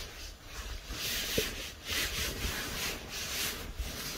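Rustling of nylon fabric and down clothing as a person shifts around at the mouth of a tarp shelter, in a series of short bursts.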